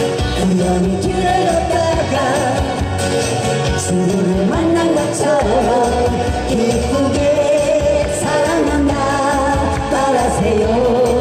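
A man and a woman singing a Korean pop song live into microphones, accompanied by strummed acoustic guitars, with a steady beat in the low end.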